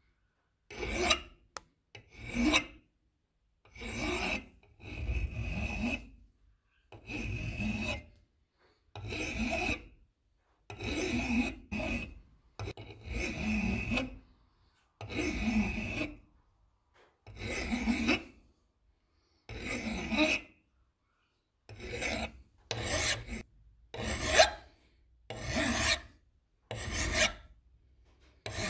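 Flat hand file rasping across metal vice parts in separate push strokes, about one every two seconds at first, then quicker, about one a second, in the last few seconds.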